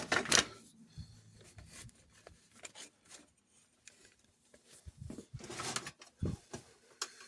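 Faint handling noises on a workbench: soft rubbing and a few light knocks, mostly in the second half.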